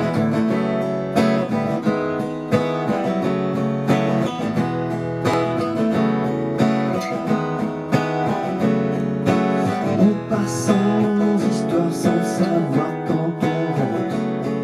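Acoustic guitar strummed in a steady rhythm: the instrumental introduction of a song.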